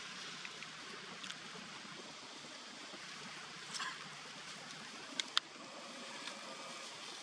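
Steady outdoor hiss with a few short, sharp clicks, the loudest two close together about five seconds in.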